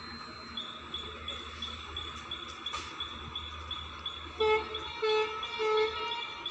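Horn of an approaching train's locomotive giving three short blasts in the second half. Before them a high chirp repeats about three times a second over a steady low rumble.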